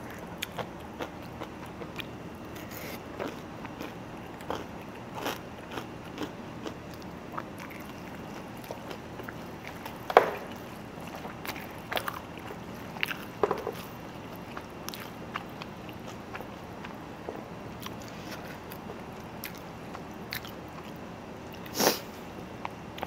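A person eating noodles and rice: chewing and short wet mouth sounds with scattered small clicks, a few louder ones about ten seconds in and near the end.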